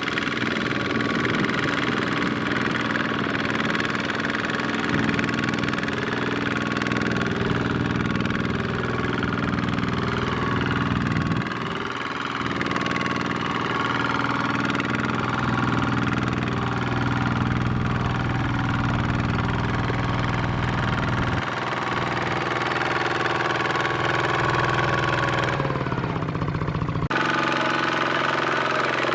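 Single-cylinder Kubota ZT-series diesel engine of a two-wheel mini tractor running steadily under load, with a knocking diesel beat. Its note shifts a few times and changes abruptly near the end.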